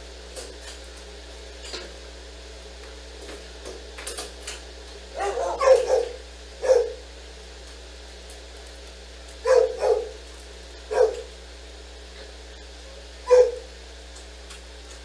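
A senior dog barking in short barks, about eight in all: a quick run of several near the middle, then single and paired barks spread out toward the end, over a steady low room hum.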